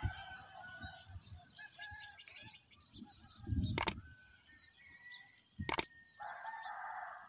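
Two sharp clicks about two seconds apart, the tap sound effect of an animated like-and-subscribe button, over faint repeated bird chirps.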